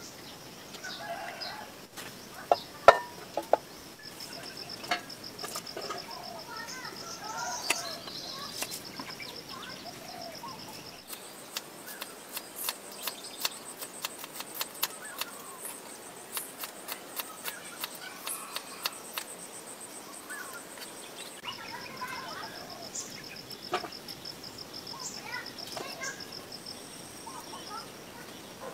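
Insects trilling steadily at a high pitch, with birds chirping now and then. Scattered sharp clicks and taps run through it, the loudest a pair of knocks about three seconds in.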